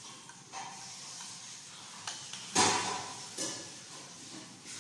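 Spoon and fork scraping and tapping on a plate while eating, a few short scrapes with one louder scrape about two and a half seconds in.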